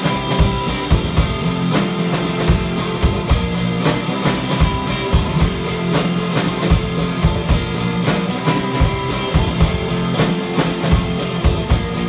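Live rock music with no vocals: an electric guitar and a drum kit playing together, the drums keeping a steady beat.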